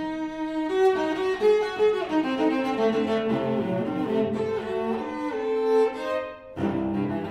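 Solo cello played with the bow: a lively scherzando passage of short, shifting notes, with a brief break near the end.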